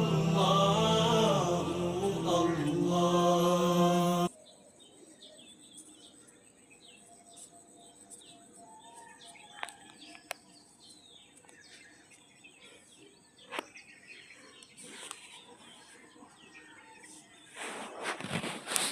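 Sung naat, a devotional chant, that cuts off suddenly about four seconds in. Quiet outdoor ambience follows, with small birds chirping, a few sharp clicks, and a short burst of noise near the end.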